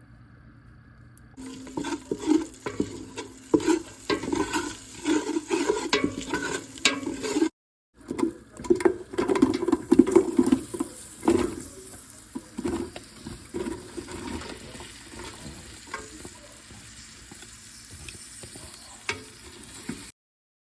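Ingredients being stirred and mixed in a bowl, with repeated scraping and knocking against its sides. The sound breaks off briefly about a third of the way in, then carries on and grows quieter.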